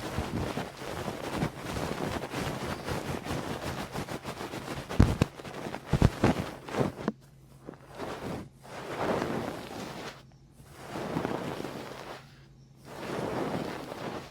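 Close-up ASMR ear sounds, with fast crackling and clicking for the first half. After that come slow swells of rubbing, rustling noise about every two seconds, with short quiet gaps between them.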